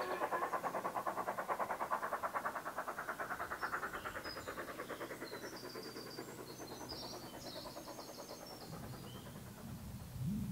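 Steam locomotive's rapid, even exhaust beats fading away as the train draws off. Birds call over it in the second half, and a low rumble comes in near the end.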